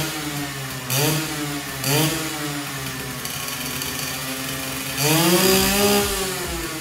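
Yamaha 125ZR two-stroke single-cylinder engine, fitted with aftermarket parts, being revved by hand on the stand. It gives three quick throttle blips about a second apart, settles to a steady idle, then takes one longer rev that rises and falls near the end.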